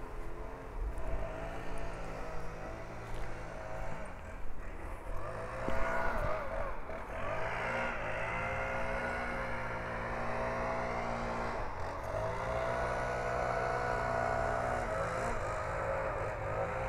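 A car engine running as the car drives along a street. Its pitch rises from about five to seven seconds in, then holds fairly steady.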